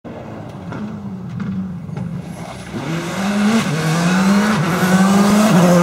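Subaru Impreza rally car's flat-four engine accelerating hard and getting louder as it approaches. Its pitch climbs and drops back at several upshifts.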